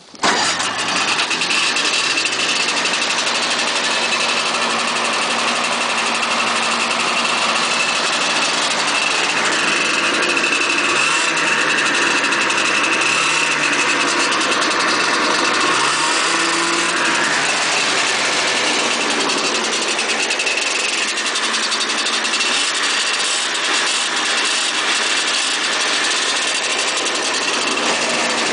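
A 1980 John Deere Spitfire 340 snowmobile's two-stroke engine catches right at the start and then runs at a steady idle. Its speed rises and dips a little a few times in the middle.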